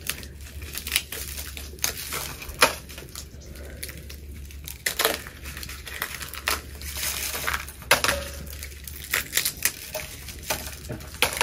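Dried guajillo and ancho chiles crackling and crinkling in irregular short crackles as they are handled and put into a pot.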